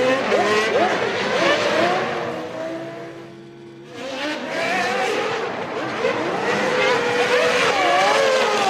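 Formula One cars' engines at high revs, several pitches rising and falling as they accelerate and shift gear. The sound fades about three seconds in, then builds again as more cars come through.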